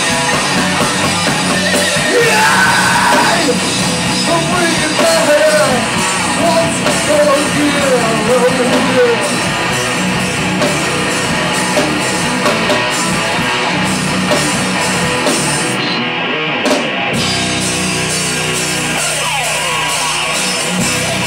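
Live rock band playing on electric guitars, bass guitar and drum kit, with a short break in the drums and cymbals about sixteen seconds in.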